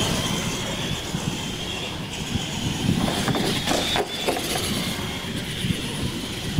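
R/C monster trucks racing on a concrete floor: a steady high whine from their motors and gears that rises briefly about four seconds in, over tyre noise, with a few sharp knocks.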